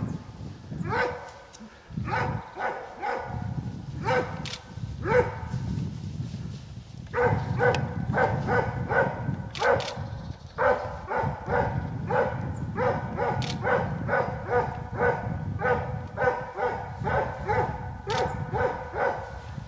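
Plott hound barking at a wild boar, holding it at bay. The barks come in quick runs: scattered at first, then about three a second through the second half.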